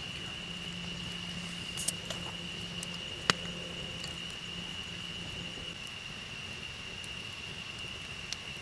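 Wood campfire crackling, with a few sharp pops, the loudest about three seconds in, over a steady high-pitched tone.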